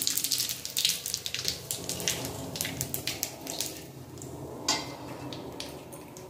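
Hot oil sizzling and crackling in an aluminium kadai as a metal spatula stirs it. The crackles are dense at first and thin out, with a short flare of crackling about two-thirds of the way in.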